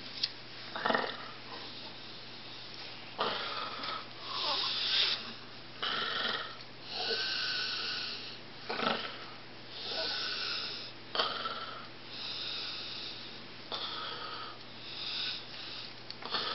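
A person snoring: rasping breaths in and out, each about a second long, repeating every one to two seconds.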